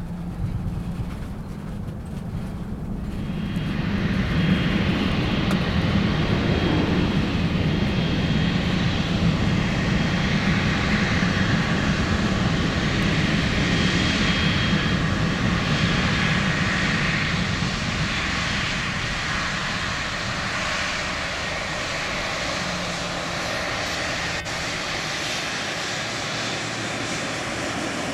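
Airliner engines running on the runway: a steady loud rush with a thin whine over it, swelling about three seconds in and easing slightly in the second half.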